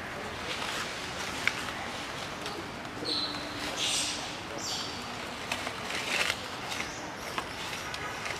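Outdoor ambience: a steady background hiss with faint distant voices, scattered light clicks and a few brief hissy sounds around the middle.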